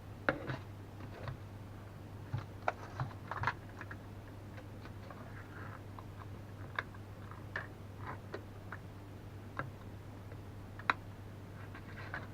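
Irregular light clicks and taps, a dozen or so at uneven intervals, the sharpest one about eleven seconds in, over a steady low hum.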